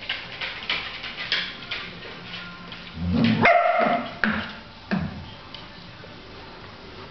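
A Welsh corgi giving short barks and a high whine. The loudest call comes about three seconds in.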